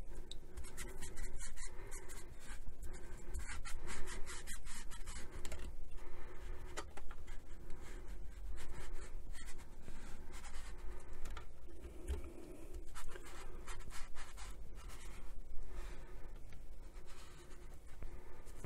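Sponge applicator of a bottle of liquid black shoe polish scrubbed in quick repeated strokes over the textured black covering of a portable radio's case, a dry scratchy rubbing.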